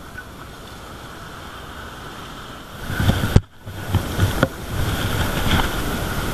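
Sea surf washing against rocks, with wind buffeting the microphone. After a brief gap about three and a half seconds in, the sound is louder, with wind rumble and several sharp knocks from hands handling the fishing rod and spinning reel next to the microphone.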